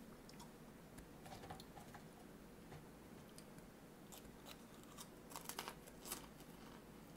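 Faint crunchy chewing of food, with a short run of louder crunches about five to six seconds in.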